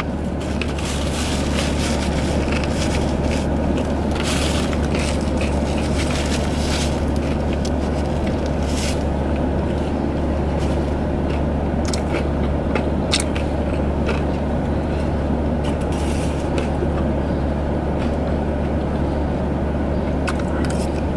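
Close-up chewing and crunching of pizza with scattered small clicks, over a steady low hum inside a car.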